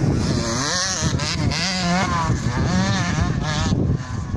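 KTM 65 two-stroke motocross bike engine revving up and down again and again as it is ridden over the track, its pitch rising and falling, dropping away near the end.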